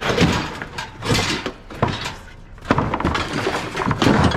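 Scrap items being shifted and set down while loading, with a series of about five knocks and clatters a second or so apart.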